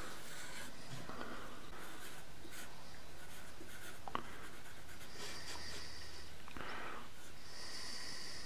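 Scratchy hand strokes rubbing across a surface, like writing or scribing, with a single sharp click about four seconds in.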